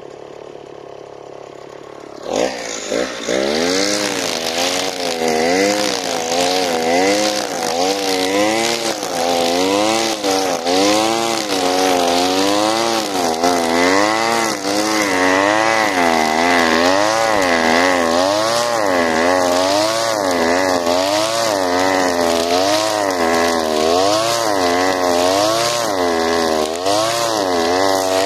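Alpina Star 55DP two-stroke gas trimmer idling, then throttled up about two seconds in. Its engine pitch then rises and falls about every second and a half as the spinning head cuts through tall grass in sweeps.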